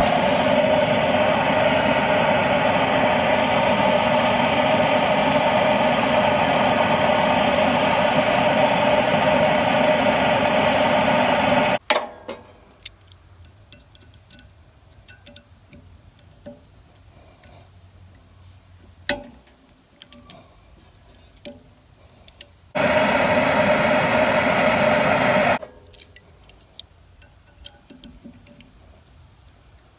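A gas torch's flame hisses steadily with a strong hum in it, heating the seized blade bolts on a DR wood chipper so they can be loosened. It shuts off abruptly about twelve seconds in, and small metal tool clicks and clinks follow. The torch runs again for about three seconds later on.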